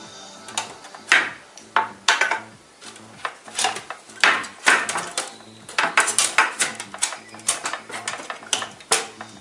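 Irregular clicks and clinks of computer parts being handled and fitted together by hand, some in quick clusters.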